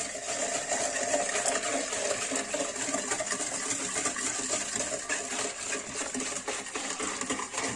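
Metal wire whisk beating quickly against the side of a bowl, a steady rapid clatter, while lukewarm water is poured in and splashes onto yeast and sugar.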